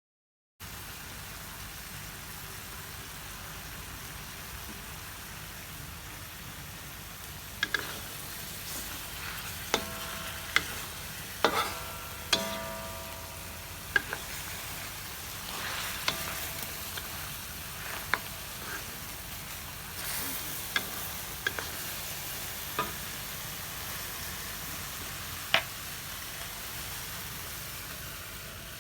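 Food sizzling steadily in hot oil in a pan while a spatula stirs it, knocking and scraping against the pan every second or two. Around ten to twelve seconds in, a few knocks leave a brief metallic ring.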